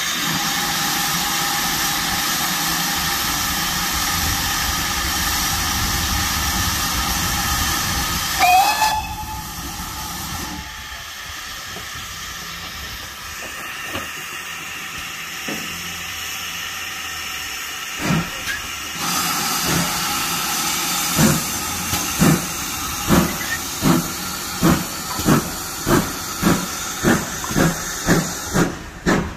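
GWR 0-6-0 pannier tank steam locomotive 9681 hissing steam while standing, then giving a short whistle. After a quieter spell it starts away, its exhaust chuffs coming steadily quicker as the train gathers speed.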